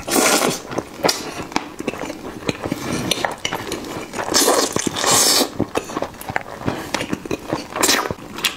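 Close-miked eating: wet chewing and slurping of noodles, with many short clicks and taps. Near the end comes a bite into a sauce-covered braised chicken drumstick.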